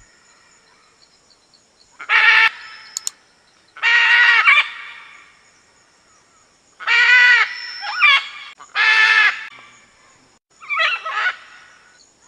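Macaw giving six loud, harsh squawks, each about half a second long, with gaps of one to two seconds between them.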